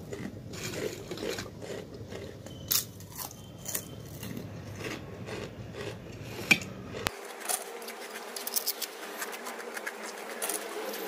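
Ridged potato chips being crunched and chewed fast, many crisp irregular crunches close together, with chips rustling and scraping on a steel plate.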